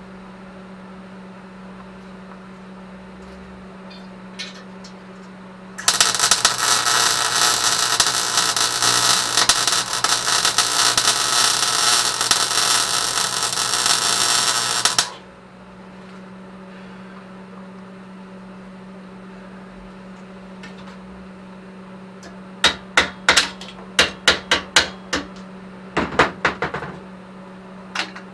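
A steady hum, then about nine seconds of electric arc welding on a steel exhaust pipe: a loud, dense crackle that cuts off suddenly. Several seconds later comes a quick series of about a dozen sharp metallic knocks.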